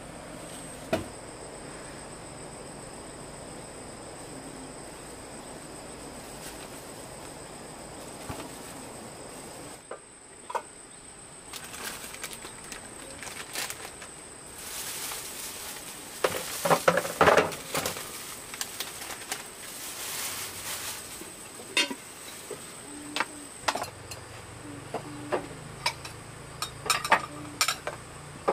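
A steady high insect whine over a faint rustle, then irregular knocks and clinks of objects being handled, thickest in a cluster past the middle and again near the end.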